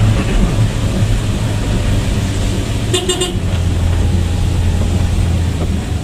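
Vehicle engine and road noise drone steadily from inside the cabin, with one short horn toot about halfway through.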